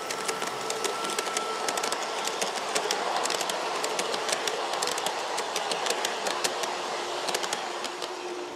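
LGB garden-scale model train rolling past on its track, the wheels clicking quickly and unevenly over the rail joints. It grows louder toward the middle as the coaches pass, then eases off near the end.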